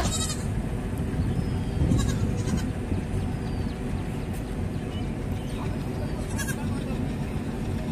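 Outdoor ambience: a steady low rumble, with a few short, high, wavering animal-like calls about a second in, around two seconds in and again near six and a half seconds.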